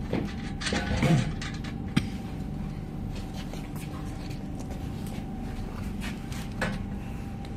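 Steel frame members and bolts of a chalk machine being handled during assembly: a few light metal knocks and short scrapes in the first two seconds and one more knock near the end, over a steady low hum.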